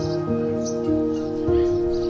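Gentle background music of held, sustained notes that change pitch every half second or so, with a few short bird chirps over it.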